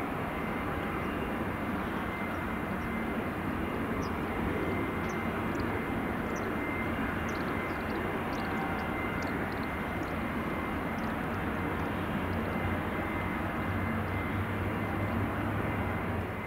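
Steady jet aircraft engine noise with a thin, high whine running through it.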